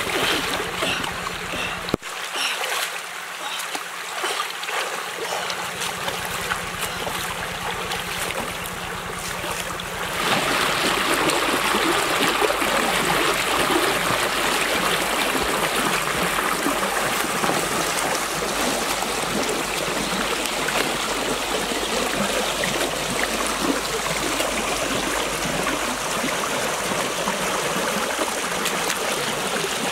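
Shallow rocky stream running, with splashing as someone wades and grabs in the water. About ten seconds in it gives way suddenly to a louder, fuller rush of water.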